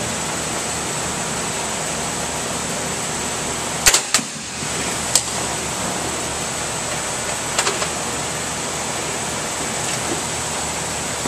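A cardboard wine shipper dropped from a drop-test machine: about four seconds in come two sharp clacks as the jaws open and the box hits the plate, another knock a second later, and lighter clicks near eight seconds as the machine is reset. A steady loud hiss runs underneath.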